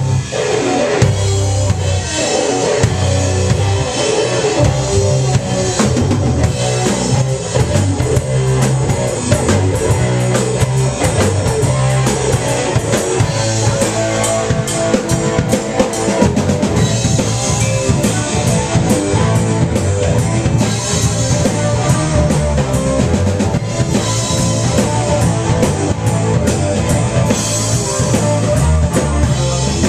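Live rock band playing a loud, steady-beat song on drum kit and guitars.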